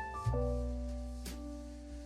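Mellow background music: sustained electric-piano-like chords that change about every second, with light percussion hits.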